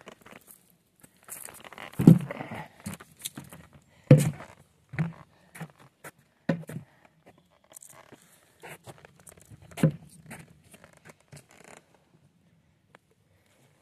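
Irregular footsteps on a forest trail, with rustling and crunching through leaf litter and brushing plants, and a handful of louder thumps among them; the noise dies away near the end.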